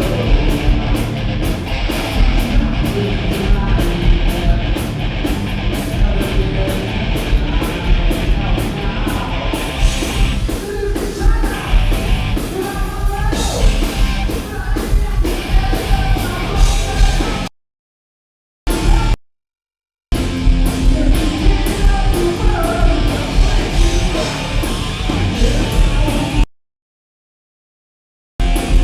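A heavy metal band playing live and loud, with drums and distorted electric guitars over a fast beat. The sound cuts to dead silence three times in the second half, where the camera mutes its microphone while zooming.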